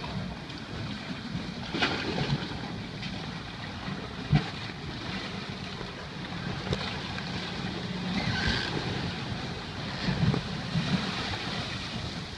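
Wind buffeting the microphone over water washing against a grounded boat's hull, with a few sharp knocks, the loudest about four seconds in.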